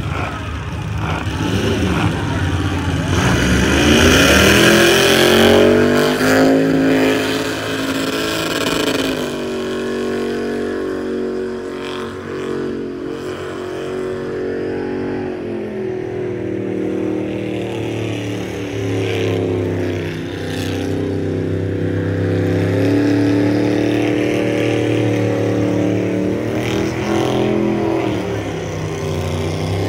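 Supercharged pickup truck engine held at high revs in a burnout. The revs climb over the first few seconds, then stay high and fairly steady, with brief dips about twenty seconds in and near the end.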